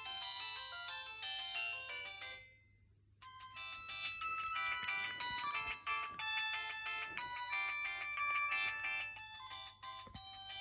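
Preloaded electronic ringtones playing on a Huawei G6153W mobile phone. One chiming melody fades out about two and a half seconds in, and after a short silence a different ringtone melody starts and plays on.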